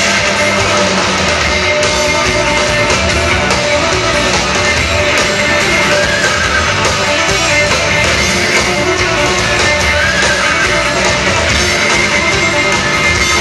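Live rock band playing loudly, electric guitar to the fore, with no break.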